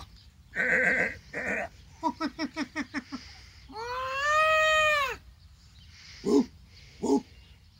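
A man doing animal impressions with his voice: two short harsh calls, then a quick stuttering call of about six pulses a second, then one long call that rises and falls. Two short, sharp yelps follow near the end.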